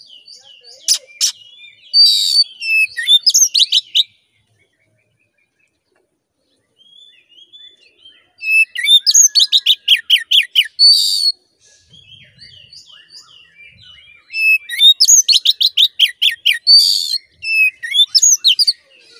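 Oriental magpie-robin (kacer) singing loudly in three bursts of rapid, repeated high notes. A few seconds of silence follow the first burst, and softer calls fill the gaps between the later ones.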